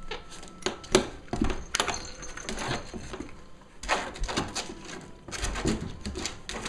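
Cavalier King Charles Spaniel puppies scrambling and pawing at a hand, an irregular run of small knocks, scratches and rustles with a sharper knock about a second in.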